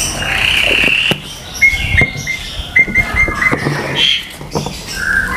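A bird chirping in short, high, repeated notes, in two quick runs in the middle, with a few light clicks and knocks of a spoon and plastic bowls being handled.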